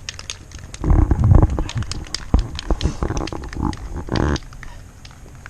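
Irregular clicks, knocks and rustling of small objects being handled and set down on a table, with a louder bout of handling noise about a second in and a short scraping noise a little after four seconds.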